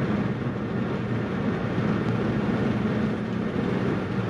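Steady road and engine noise inside a Mazda car's cabin while driving, a low even rumble at a constant level.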